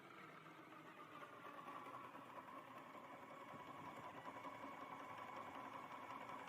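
Faint steady whine of a power drill running a hole saw, its pitch settling slightly lower about a second in and then holding.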